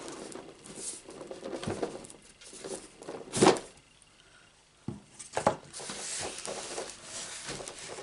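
Cardboard marker storage box being handled as its tight lid is worked off: scraping and rustling of cardboard with a few short taps, and one louder bump about three and a half seconds in.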